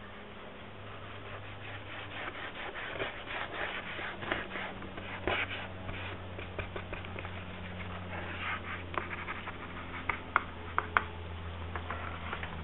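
A brush and fingers scrubbing ink wash across paper: repeated dry, scratchy rubbing strokes. A few sharp taps come about ten seconds in, over a steady low hum.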